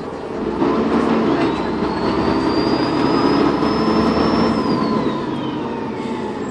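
Dennis Trident 2 bus engine pulling hard, with its turbocharger whistle rising in pitch for about three seconds, then sliding down near the end as the engine eases off.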